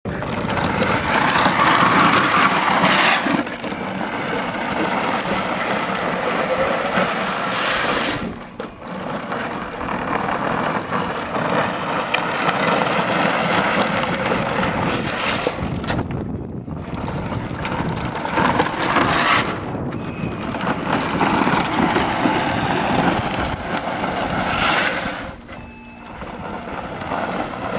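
Power Wheels toy jeep driving on asphalt, its hard plastic wheels making a steady rough grinding rumble on the road surface. The noise drops out briefly a few times.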